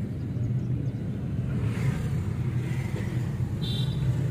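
Steady low rumble of a car's engine and tyres, heard from inside the moving car. A brief high chirp sounds near the end.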